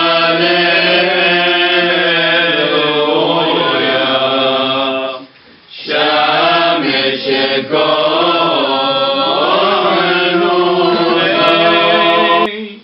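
A man's solo voice chanting in the Syriac Orthodox style, long held notes that waver and bend in pitch. The chant breaks off briefly about five seconds in, then resumes and stops just before the end.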